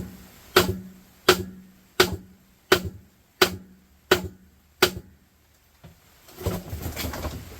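Hammer blows at an even pace, about seven strikes a little under a second apart, each with a short ring. Near the end comes a spell of irregular clattering and rustling.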